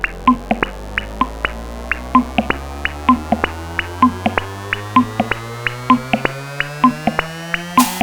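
Electronic dance music: a build-up with a steady beat under slowly rising synth tones, with fuller drums crashing in near the end.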